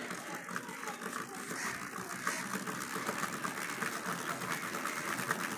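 Motorcycle electric self-starter motor, fitted to a bicycle's front wheel, running steadily and spinning the wheel: a steady whir with a fast ticking through it.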